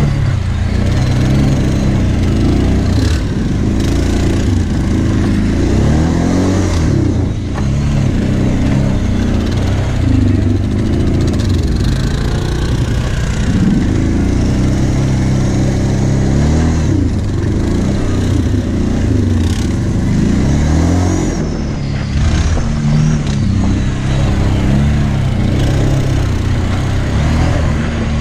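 Quad bike (ATV) engine under load, revving up and falling back repeatedly as the throttle is worked over bumpy dirt trail, with a second quad's engine close ahead.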